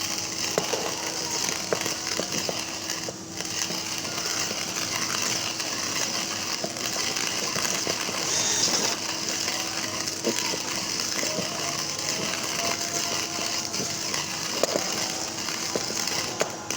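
Hario ceramic-burr hand coffee grinder crushing coffee beans: a continuous gritty crackle with scattered small cracks and clicks.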